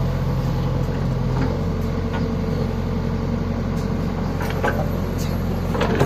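JCB backhoe loader's diesel engine running steadily while the loader dumps and scoops wheat, with a slight shift in the engine note about a second and a half in. A few short clicks and knocks sound in the second half.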